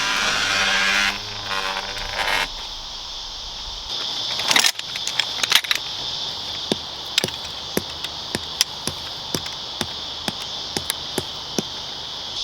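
Insects droning steadily in a high, unbroken band. A rough mechanical noise runs over the first couple of seconds. After that come scattered metallic clicks, which settle into a run of short clicks about twice a second.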